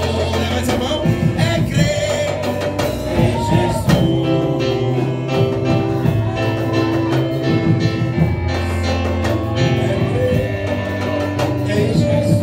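Live gospel worship music through a PA: a man singing into a microphone over sustained instrumental backing, with no break.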